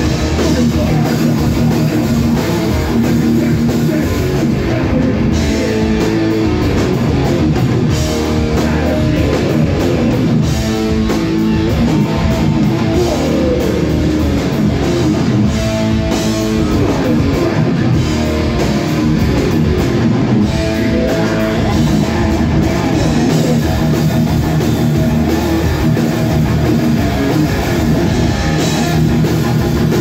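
Thrash metal band playing live: distorted electric guitars and a drum kit, loud and unbroken.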